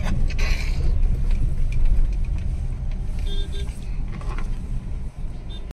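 A car running, heard from inside its cabin: a steady low rumble of engine and road noise, with a short faint tone a little past halfway.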